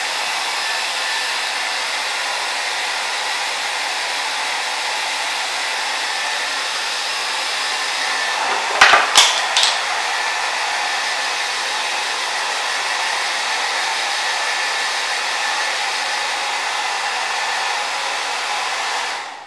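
Hair dryer running steadily, then switched off suddenly near the end. A few sharp knocks about halfway through.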